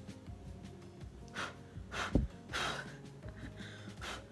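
A woman's short breaths and gasps of admiration, with a soft low thump about two seconds in and faint music underneath.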